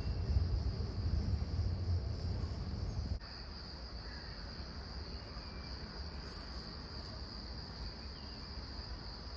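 Crickets chirring in a steady, high, even trill, over a low rumble that drops away abruptly about three seconds in.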